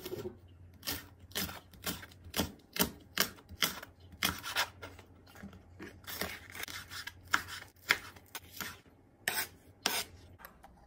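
Kitchen knife slicing a Korean leek (daepa) into rounds on a cutting board, each cut a short crisp chop through the stalk onto the board, about two a second at an uneven pace.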